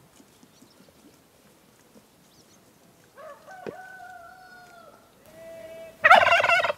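Farmyard poultry calling: a long held crow starting about three seconds in, a shorter call after it, and a loud warbling call near the end.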